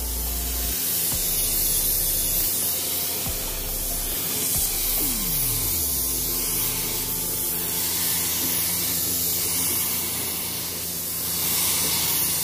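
Central Pneumatic HVLP gravity-feed spray gun spraying black automotive base coat, its compressed air making a steady hiss.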